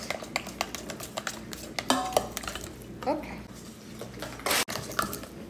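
A utensil stirring eggs in a stainless steel mixing bowl, with quick repeated clinks against the metal. A short louder burst of noise comes near the end.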